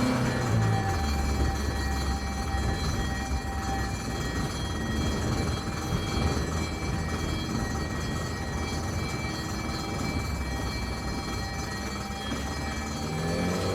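Ambulance engine running. It drops from a higher speed to a low idle about a second in, holds a steady low rumble, then begins to rev up near the end.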